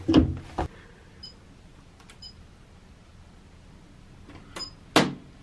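Front-loading washing machine being set up: a few knocks as laundry and the door are handled, then short electronic beeps from its control panel as buttons are pressed, and a sharp click about five seconds in.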